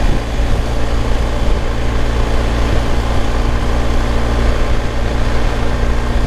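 BMW R1250 GS's 1254 cc boxer-twin engine running steadily at a constant cruise of about 48 mph, heard from a helmet-mounted camera over a steady rush of wind. There is no change in revs.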